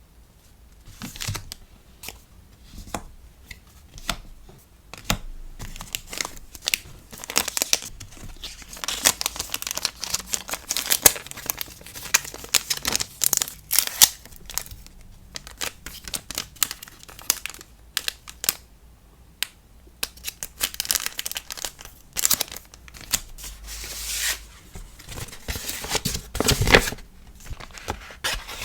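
Hand-packing sounds: paper and plastic packaging rustling, crinkling and tearing, broken by many small sharp clicks and taps, busiest in two stretches through the middle and near the end.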